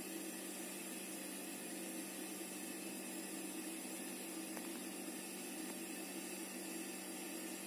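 Steady room noise: an even hiss with a low hum underneath, and one faint click about four and a half seconds in.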